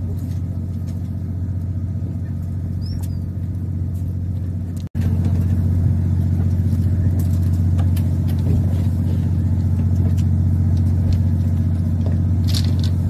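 Steady low hum of a fishing boat's engine running. It drops out for an instant about five seconds in and comes back a little louder.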